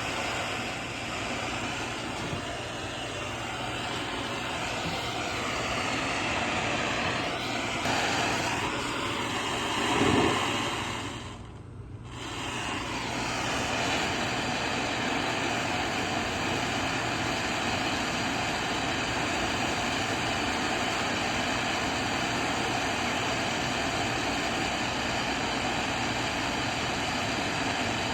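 Handheld gas soldering torch burning with a steady hissing flame while heating a copper pipe coupling for soldering. The flame noise dips briefly about twelve seconds in, then carries on steadily.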